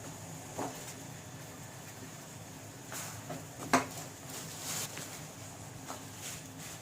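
Scattered light knocks and clicks of a cooking pan and spoon as jaggery goes into the water, the sharpest about three and a half seconds in, over a faint steady hiss.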